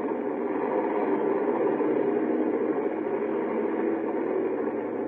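Steady, muffled engine noise of a naturally aspirated drag car making its run, thin and dull, with no deep bass or bright top, as if re-recorded from a screen.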